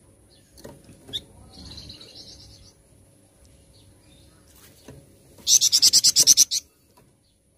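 A flamboyan songbird calling: a soft, fast high trill, then about five seconds in a loud, very rapid rattling series of about a dozen high notes lasting about a second.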